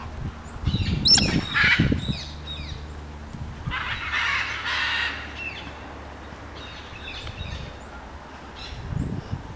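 Galah cockatoos giving harsh, screechy calls in bursts, loudest about a second in and again around four to five seconds in, with fainter calls later on. Low thuds sound beneath the first calls and again near the end.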